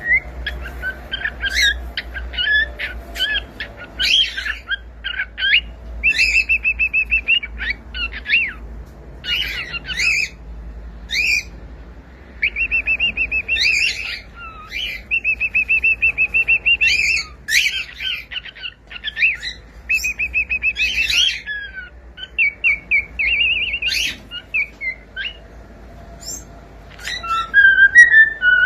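Cockatiel singing: a string of chirps and short whistled glides, mixed with rapid warbling trills held on one pitch, coming in phrases with short pauses between them.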